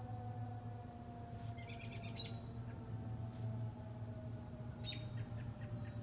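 Distant Federal Signal 2001-130 electromechanical outdoor warning siren sounding a steady tone whose pitch slowly falls as it winds down. Birds chirp briefly twice, around two seconds in and again near the end.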